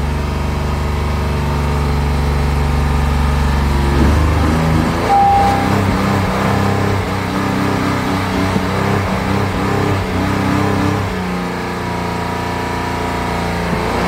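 2016 Honda Pilot's 3.5-litre V6 running at a high idle right after starting, its note shifting about four seconds in and again near eleven seconds. A short beep sounds about five seconds in. The engine goes straight to high RPMs on start-up, which comes with the rocker arm oil pressure switch fault (code P2652).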